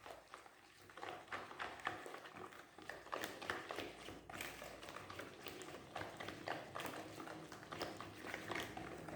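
A kitchen utensil clicking and tapping against a mixing bowl while a semolina batter is stirred, with irregular strikes several times a second.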